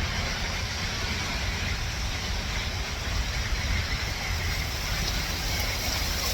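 Wind buffeting the microphone with a steady low rumble, over an even hiss of light rain starting to fall.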